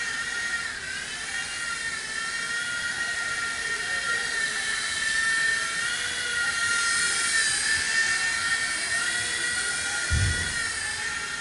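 WL-Toys V911 micro electric RC helicopter flying: a steady high whine from its motor and rotors that wavers a little in pitch as the throttle changes. A brief low thump comes about ten seconds in.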